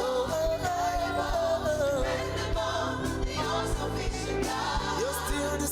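Gospel praise music: voices singing a held, gliding melody over a band with bass and a steady drum beat.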